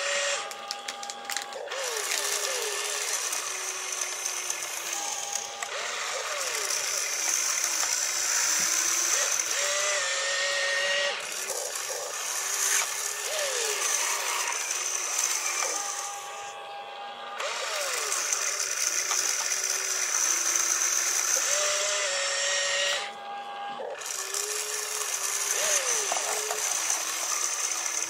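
RC excavator's electric motors and gears whining as the boom, arm and bucket work and the upper body swings, in stop-start cycles that repeat, with brief pauses about 16 and 23 seconds in.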